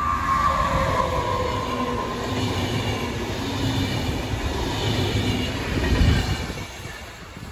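DSB EB-class electric locomotive (Siemens Vectron) passing with a rake of double-deck coaches. A high tone from the locomotive drops in pitch as it goes by, then the coaches' wheels rumble steadily on the rails, loudest about six seconds in as the end of the train passes, then fading.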